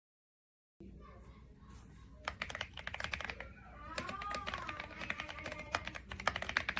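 Typing on a Womier SK71 mechanical keyboard with pre-lubed linear switches: rapid, uneven key strokes that start about two seconds in.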